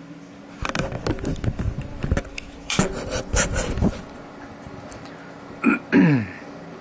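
A run of knocks and scrapes from about half a second in until about four seconds, then near the end two short whines falling in pitch as the Tiko delta 3D printer's stepper motors move the print head, over a faint steady hum.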